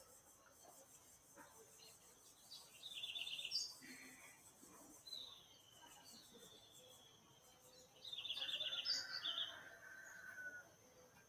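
Wild birds calling: a fast trill of rapidly repeated high notes about three seconds in and again near eight seconds, with thin falling whistled calls between and after.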